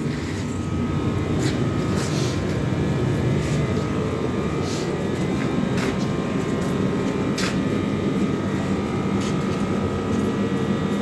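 A steady machine drone with a faint steady whine and a few light clicks through it.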